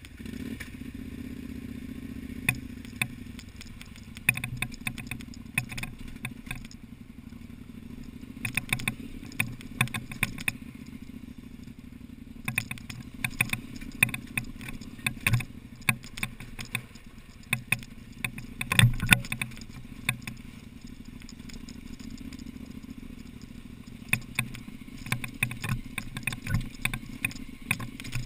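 KTM 950/990 Adventure's V-twin engine running steadily as the bike rolls down a loose rocky track, with frequent sharp clatters and knocks from stones and the bike's suspension and luggage over the rough ground, loudest about 19 seconds in.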